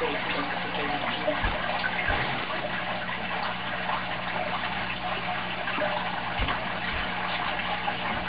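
Steady room noise: an even hiss with a low electrical hum under it, and a few faint low thumps about one and a half, two, six and a half and seven seconds in.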